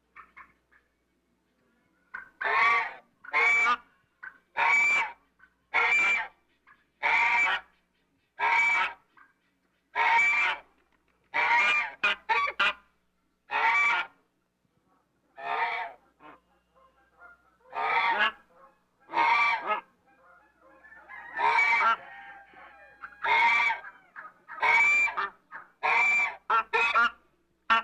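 African goose honking: a long series of loud honks, each about half a second, coming roughly once a second with some in quick pairs, after a quiet first two seconds.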